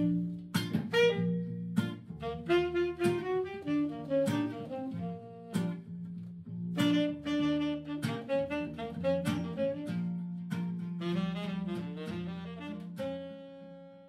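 Instrumental music: a run of notes that ends near the end on one held note that fades out.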